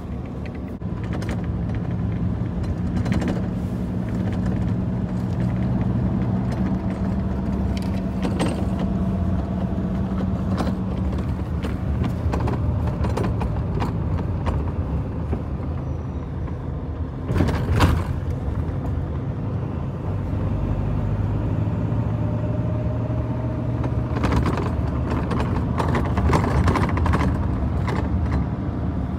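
Car driving, heard from inside the cabin: a steady low engine and road hum, with one brief thump about two-thirds of the way through.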